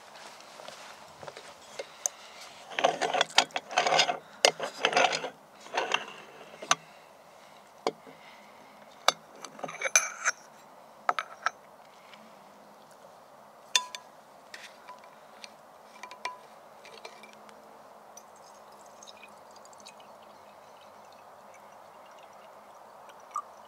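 Aluminium moka pot being unscrewed: a few seconds of rasping, grinding scrapes from the threads, then scattered metallic clinks and taps as the pot's parts are handled and set down on a wooden table.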